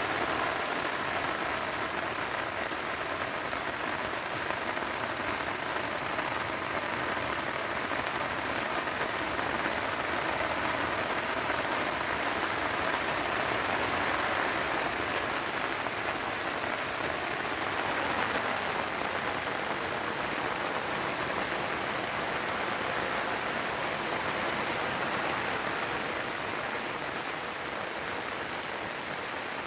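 Steady light rain falling on crops and vegetation, an even hiss with no breaks.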